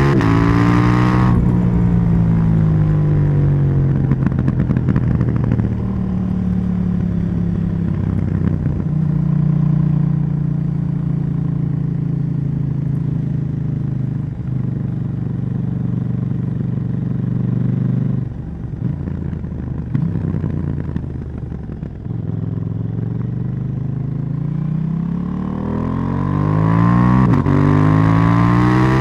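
KTM 790 Duke's parallel-twin engine and exhaust under riding: revs falling off at the start, then running fairly steadily at lower revs, easing off about two-thirds of the way through, and rising again as the bike accelerates near the end.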